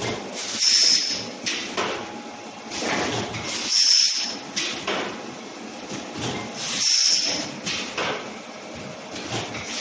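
Suppository production line running in a steady cycle: a short burst of pneumatic air hiss about every three seconds, with mechanical clacks and rattles between.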